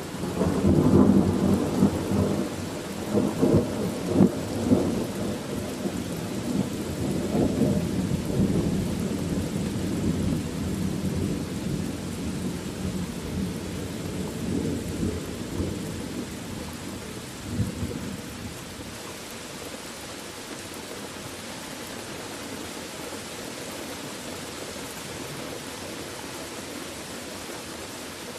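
Thunder: a loud peal that breaks suddenly, with sharp cracks in the first five seconds, then rolls away and fades over about fifteen seconds. A steady hiss of rain runs underneath.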